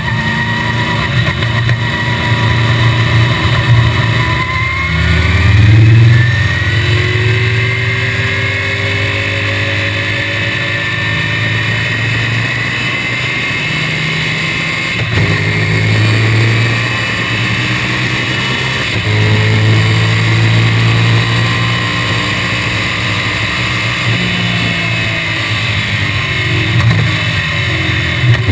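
The 1965 BTM Cheetah Roadster's Chevrolet small-block V8 runs hard at racing revs, rising in pitch as it pulls through the gears with brief breaks at the shifts, under a constant hiss of wind in the open cockpit.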